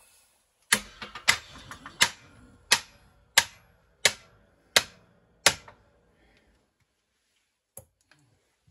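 Hand-pumped hydraulic shop press bearing down on a sewing machine's cast aluminum housing: eight sharp clicks at an even pace of about one and a half per second, with a faint low noise between them, then a single click near the end.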